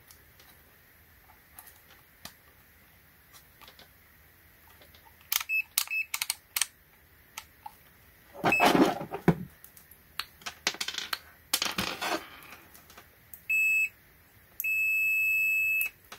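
ANENG ST170 clamp meter's continuity beeper sounding as the test probe tips touch: a stutter of short high beeps about five seconds in, then a short beep and a long steady beep of about a second and a half near the end, showing a closed circuit between the leads. In between, loud rustling and clattering of the test leads being handled.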